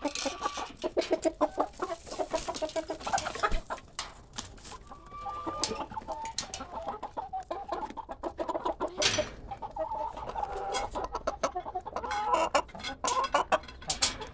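A flock of chickens clucking in quick, repeated notes, with a few longer, drawn-out calls and many sharp clicks mixed in: hungry hens crowding round for food.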